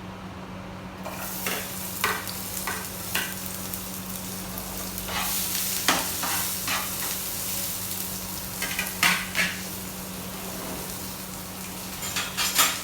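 Chopped onion dropped into hot oil and sizzling: the frying hiss starts suddenly about a second in and keeps going, with repeated scrapes and knocks of a utensil stirring in the pan. A steady low hum runs underneath.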